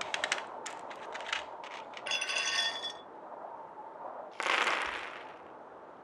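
Gateron Oil King switch box being unpacked: its cardboard sleeve is slid off the plastic tray. A quick run of small plastic clicks comes first, then a short clinking rattle about two seconds in, and a brief scraping slide a little past four seconds.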